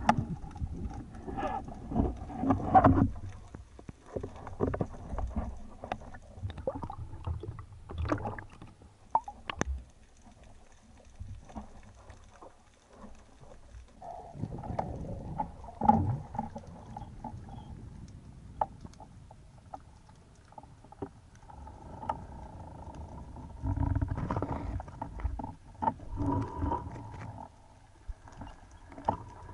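Muffled underwater sound from a camera in its housing: irregular rumbling swells of moving water, with scattered clicks and knocks.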